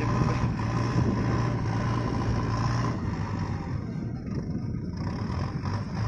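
JCB backhoe loader's diesel engine running steadily under load as its front bucket pushes into a pile of soil. A constant low engine hum that eases a little about halfway through.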